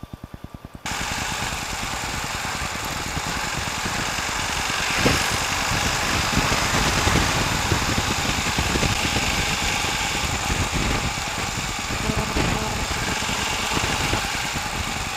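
Royal Enfield Himalayan's single-cylinder engine idling with an even low beat. About a second in, this gives way to the bike being ridden on the road: the engine running under a steady rush of wind on the microphone.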